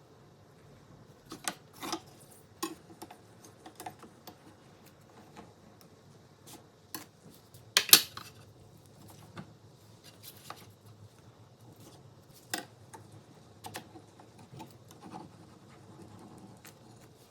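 Scattered clicks, taps and small clatters of kitchen utensils and dishes being handled, irregularly spaced, with one louder clatter about eight seconds in.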